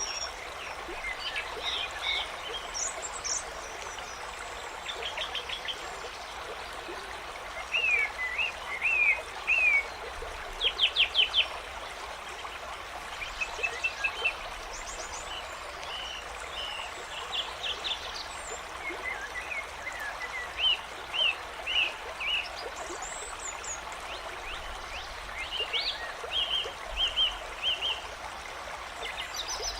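Stream trickling steadily, with songbirds chirping and trilling over it in short scattered phrases. The loudest is a quick run of chirps about 11 seconds in.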